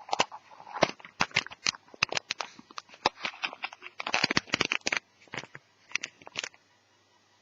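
Irregular clicks and taps of small plastic and metal netbook parts being handled, stopping about six and a half seconds in.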